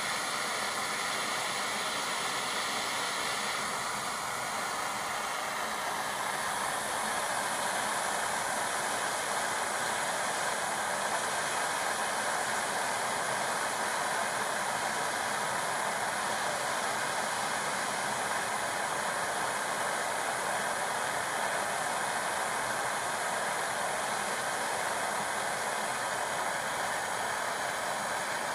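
Brass gas torch burning with a steady hiss while it fires powdered enamel onto copper pieces.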